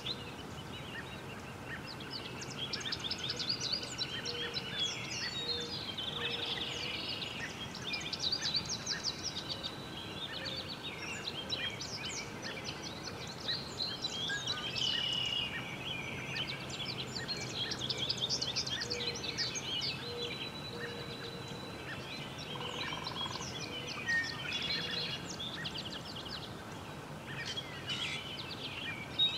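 Several songbirds singing and chirping at once, with overlapping quick trills and chirps, over faint steady background noise.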